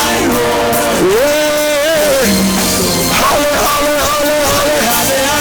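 Live worship band music with a singing voice that slides up into long held notes and falls away, over sustained chords.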